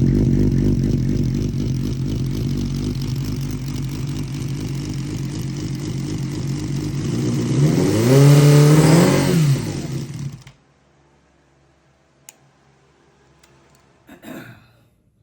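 Carbureted motorcycle engine idling, revved up once for about two seconds, dropping back and then shut off. The owner suspects a vacuum leak at one or two of the carburettor intake boots.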